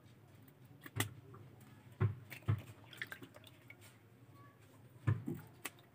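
Knife cleaning a small fish by hand: faint wet scraping and squishing, with about five sharp clicks scattered through.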